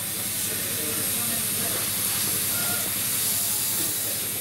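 Steady hiss of steam escaping from a miniature LMS steam locomotive.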